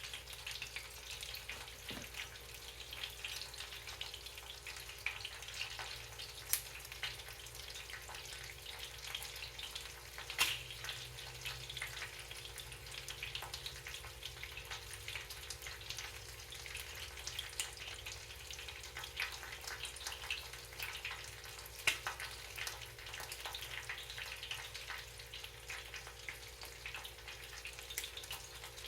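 Cornflake-breaded chicken wing drummies frying in hot oil in a pan: a steady sizzle and crackle with scattered sharp pops.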